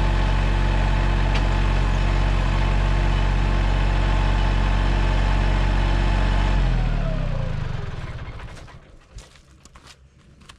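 Mahindra 1626 compact tractor's diesel engine idling steadily, then shut off about seven seconds in, its pitch sliding down as it spins to a stop. Afterwards a few light clicks and footsteps.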